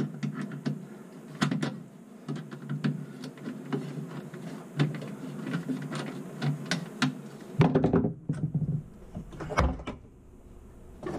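A screwdriver and hands working the dishwasher drain-hose clamp on top of a garbage disposal: scattered clicks, taps and small knocks. About three-quarters of the way through comes a louder stretch of clunking and handling noise.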